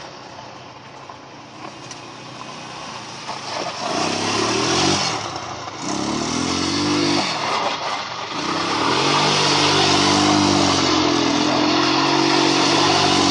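ATV engine accelerating in three rising runs, each climbing in pitch and getting louder, about four, six and nine seconds in, then running at a steady, slightly wavering pitch.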